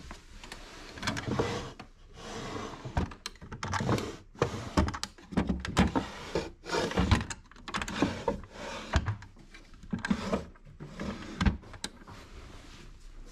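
Drawers of a wooden nightstand being pulled open and pushed shut by hand, with repeated sliding scrapes and sharp knocks of wood on wood.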